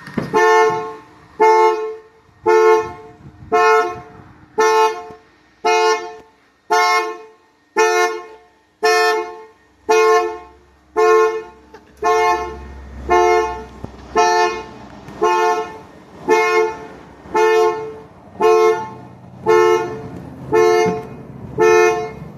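2002 Cadillac Eldorado's anti-theft alarm set off, pulsing the car's horn: a two-note honk about once a second, each about half a second long, in a steady unbroken rhythm.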